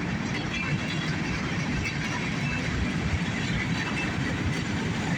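Cars of a CSX mixed freight train rolling past: a steady rumble of steel wheels on the rails, with faint high metallic squeaks.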